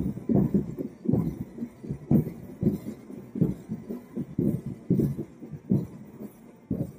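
Dull low thumps repeating irregularly, about two to three a second, with no clear steady beat.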